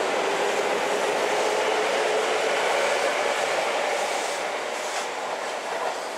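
Seibu 4000 series electric train running past at close range, a steady rumble of wheels on rails with a couple of sharper wheel clacks about four and five seconds in.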